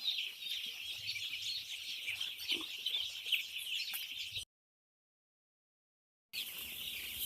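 A large flock of five-day-old chicks peeping, a dense chorus of short high chirps. The sound drops out completely for about two seconds past the middle, then the peeping resumes.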